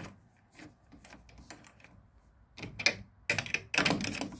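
Socket wrench ratcheting on a relay terminal nut: a few faint scattered clicks, then a dense run of sharp, quick clicks starting about two and a half seconds in.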